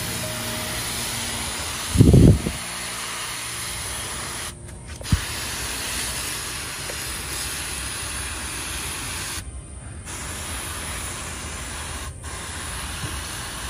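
Hand sprayer hissing steadily as it soaks a coconut bonsai's roots with root-stimulant solution, stopping briefly three times. A loud low thump about two seconds in.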